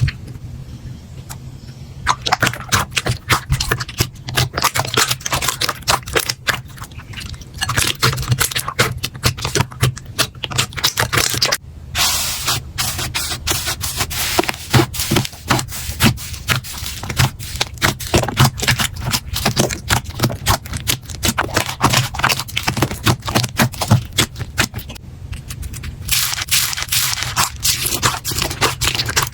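Slime being squeezed and poked by hand, giving dense runs of rapid crackling clicks and squelches. The clicking breaks off briefly about 12 s in and again about 25 s in.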